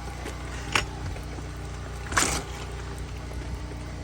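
Generator engine running with a steady low hum. A sharp knock comes about three quarters of a second in, and a brief scraping rustle comes around two seconds.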